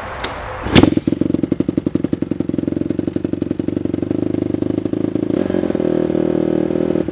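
Honda CRF dirt bike's single-cylinder four-stroke engine starting on its push button about a second in with a sharp catch, then running at a steady, rapidly pulsing idle.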